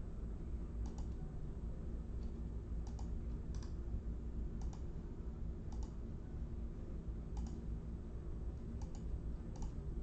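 About eight light, sharp clicks at irregular intervals, roughly one a second, over a steady low hum.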